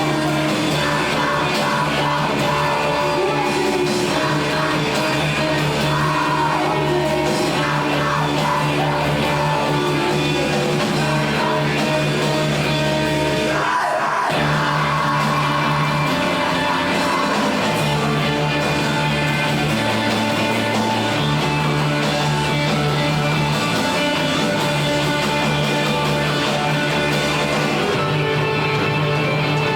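A rock song with singing over a full band. The music breaks off briefly about halfway through, then comes back in.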